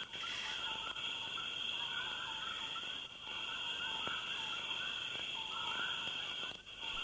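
Night chorus of insects and frogs: a steady high trilling with wavering, repeating lower calls over it.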